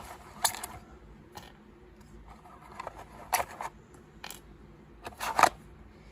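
Sharp plastic clicks and snaps, about three loud ones among smaller handling noises, as the body shell and its clips are taken off a small electric RC buggy.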